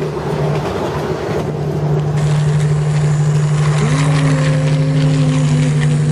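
Battery-powered plastic toy steam locomotive running on plastic track, its small electric motor and plastic gears whirring with a steady hum and rattle. About four seconds in, a steady electronic whistle-like tone from the toy starts with a quick upward slide and holds.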